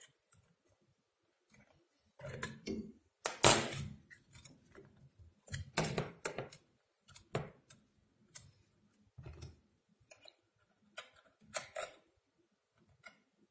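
Irregular small metal clicks and scrapes as a CPU cooler's mounting screws are tightened by hand with the small tool supplied with the cooler, the loudest click about three and a half seconds in.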